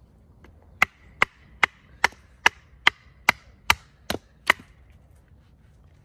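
Ten sharp, evenly spaced strikes on wood, about two and a half a second, each with a short ring, stopping after the tenth.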